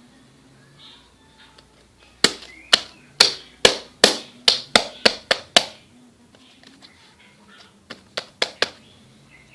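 Slime being squeezed and pressed in the hands, giving sharp clicking pops: about nine in quick succession from about two seconds in, then four more near the end. Faint bird chirps sound underneath.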